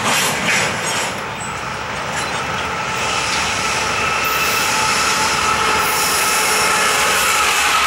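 Double-stack intermodal freight train rolling past, its steel wheels running on the rails with a high flange squeal that comes in about three seconds in. The noise grows slightly louder as a second train's diesel locomotives draw near on the adjacent track.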